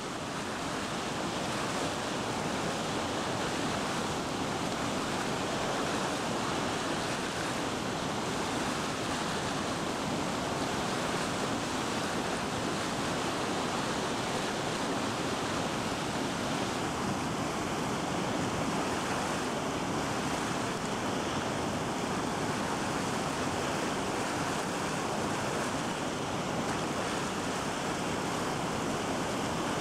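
Steady rushing noise of river whitewater rapids.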